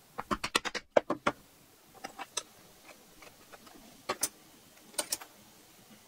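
Clicks and taps of small hand tools and a squeeze bottle being handled and set down on a hard work board: a quick run of clicks in the first second and a half, then a few short pairs of clicks.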